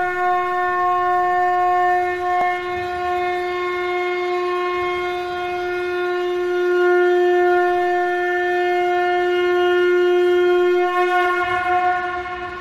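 Conch shell (shankh) blown in one long, unbroken, steady note, swelling slightly in the middle.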